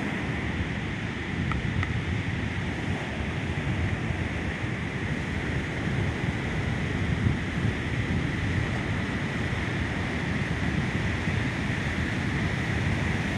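Ocean surf breaking steadily on the beach, a continuous wash of waves, with wind rumbling on the microphone.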